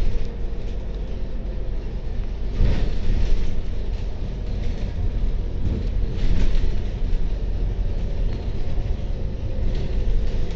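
Double-decker bus driving, heard from the upper deck: a steady low engine and road rumble with a faint steady whine. Two short, louder bursts of noise come about three and six seconds in.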